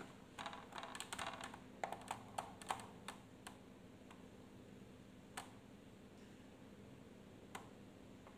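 Faint quick taps and clicks, like typing, from fingers tapping on a phone while a command is sent in an app, thinning out to a few single clicks after about three and a half seconds.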